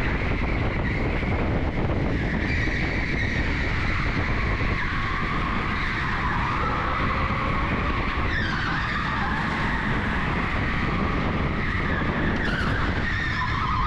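Onboard sound of an electric go-kart at racing speed: a steady rush of noise with a whine that rises and falls in pitch, and tyres squealing through the corners, most clearly about two-thirds of the way in and again near the end.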